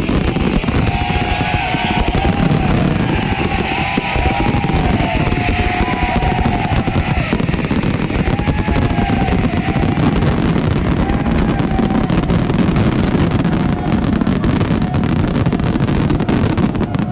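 A dense fireworks barrage: aerial shells bursting and crackling continuously, their booms running together into a steady loud rumble.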